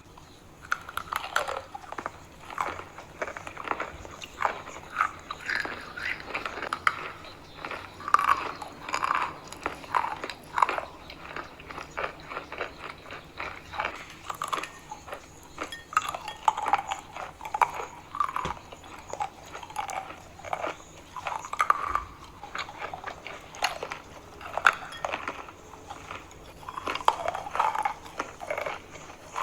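A person biting and chewing chalk: a dense run of irregular crunches and crackles.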